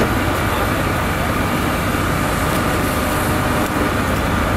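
Steady engine noise: an unbroken low rumble under a constant hum.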